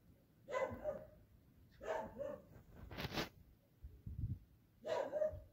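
A dog barking in the background, several short barks spread about a second apart.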